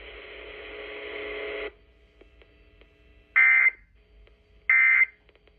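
Emergency Alert System end-of-message signal: two short, identical bursts of SAME digital data tones, a harsh warbling buzz about a second and a half apart, marking the end of the alert. Before them, a steady radio hiss cuts off suddenly a little under two seconds in.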